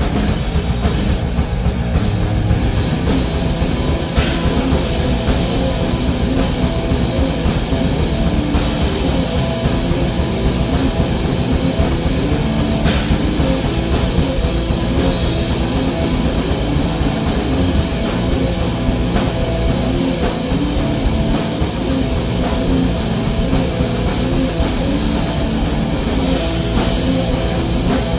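Live rock band jam on a two-note E and F riff: electric guitar and drum kit playing loud and heavy.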